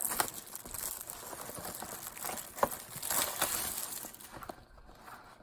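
Food packaging being handled: plastic and cardboard crinkling and rustling, with a few sharp clicks, growing quieter near the end.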